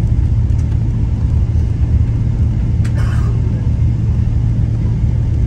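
Steady low rumble inside the cabin of a Boeing 777 taxiing after landing: engine hum and the wheels rolling over the taxiway. A short click about three seconds in.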